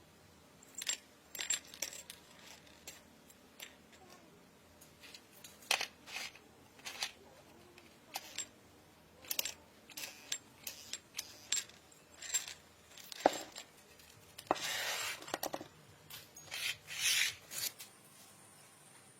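Small metal parts and tools clinking and tapping as they are handled, in scattered irregular knocks, with a short scraping or rubbing sound about fifteen seconds in.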